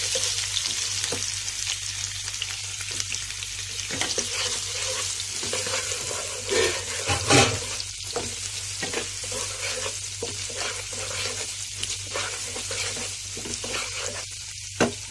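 Chopped onion and garlic sizzling in hot oil in a non-stick pan, stirred with a wooden spatula that scrapes across the pan, with two louder knocks a little past halfway.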